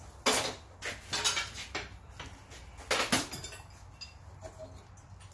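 Sharp metal-on-metal clanks and clinks of blacksmithing tools and hot stock at the vise: a few irregular strikes, the loudest about a quarter second in and a pair around three seconds in.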